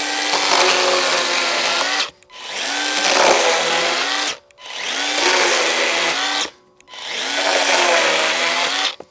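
Makita 36-volt brushless cordless chainsaw cutting through a small log, run in four bursts of about two seconds each with brief pauses between them; the motor's whine rises as each burst starts, then holds steady.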